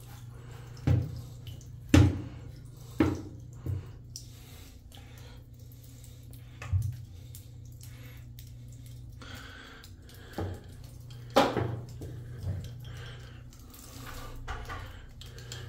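Scattered drips and small splashes in a bathtub of backed-up sewage water, about eight separate sharp ones, over a steady low hum.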